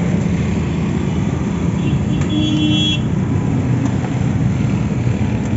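Steady street traffic noise, with a short vehicle horn toot about two seconds in.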